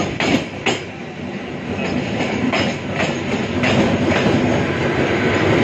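Mumbai AC local EMU train passing close by: steady rolling noise of its wheels, with sharp clicks every second or so as they cross rail joints.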